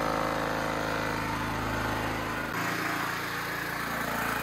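Honda GX270-clone single-cylinder engine of a Champion portable generator running steadily on propane through a converted tri-fuel carburetor. About two and a half seconds in, the sound changes abruptly, with less low rumble.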